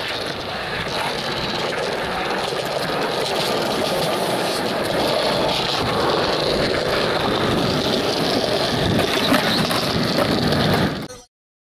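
Skateboard wheels rolling over concrete, a steady rough rumble that slowly grows louder, with one sharp click a little after nine seconds. The sound cuts off abruptly near the end.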